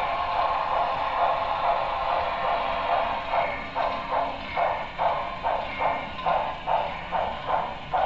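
Sound decoder of an HO-scale Broadway Limited Paragon 3 2-10-4 steam locomotive playing a steady steam hiss, then rhythmic exhaust chuffs, about two a second, starting about three seconds in.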